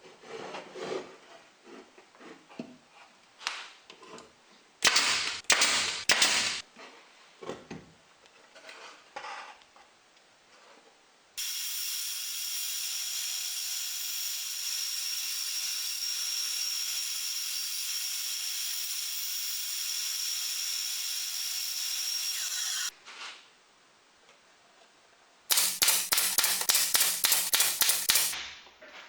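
Workshop work on wood: scattered knocks and handling noises, then a power tool runs steadily for about eleven seconds and cuts off abruptly, followed near the end by about three seconds of quick, rhythmic scraping strokes.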